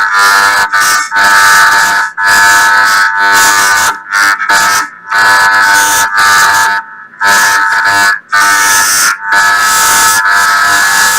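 A very loud, harsh, horn-like electronic tone held almost without pause, with a few brief breaks.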